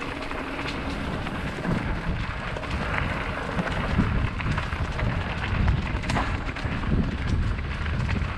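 Mountain bike rolling along a dirt trail: tyre crunch with frequent small clicks and rattles from the bike over the rough surface, and wind buffeting the microphone as a heavy low rumble.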